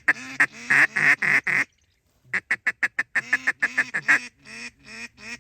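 Duck call blown in rapid runs of loud, close quacks, several a second, the mallard hen calling that hunters use on approaching ducks; it breaks off briefly before the middle and starts again.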